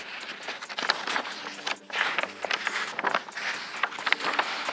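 Large paper template rustling and crinkling as it is handled and pressed against a masking-taped car fender, in irregular crackles and light clicks.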